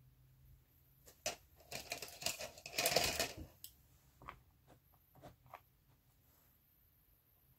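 Irregular light clicks and rattles of small hard objects being handled, thickening into a short dense clatter about three seconds in, then a few scattered clicks.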